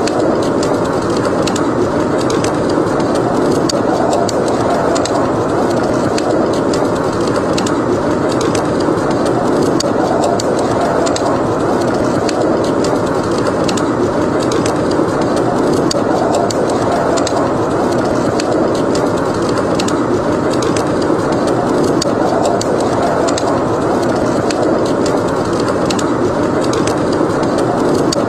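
Steady blizzard wind with a burning fireplace crackling: a constant, dense rush of wind noise, with many small sharp wood pops and crackles scattered irregularly over it.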